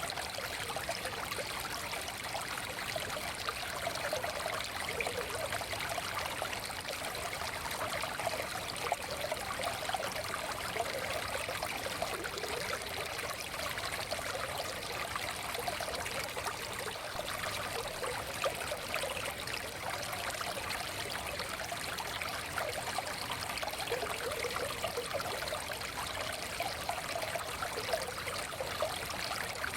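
A small forest stream running steadily over stones, a continuous babbling and trickling flow.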